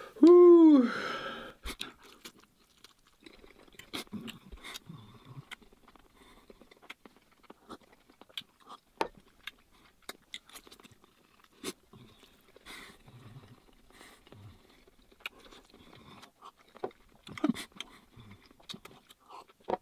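A loud falling vocal groan in the first second and a half. Then close-miked chewing of spicy Korean stir-fried instant noodles, with scattered sharp clicks and smacks.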